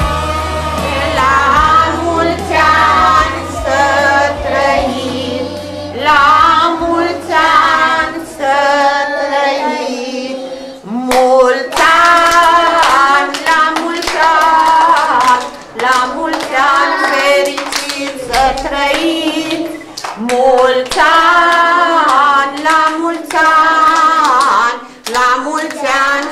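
A group of young children singing together in chorus and clapping along. The bass of a music track dies away over the first several seconds.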